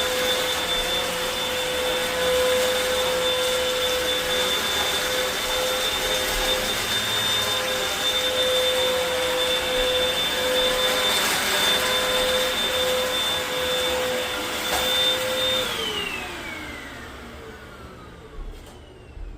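Hoover WindTunnel T-Series Rewind upright vacuum cleaner running with a steady whine while vacuuming up shredded paper. About three-quarters of the way through it is switched off, and its motor whine falls steadily as it spins down.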